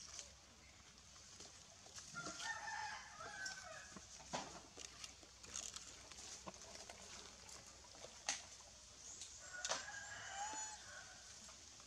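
A rooster crowing twice, faint and distant: one call about two seconds in and another near the end. Scattered faint clicks and rustles of dry leaves come between the calls.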